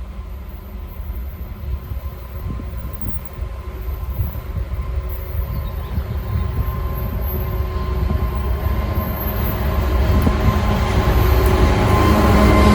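Diesel locomotive approaching, its engine drone and the train's rumble growing steadily louder.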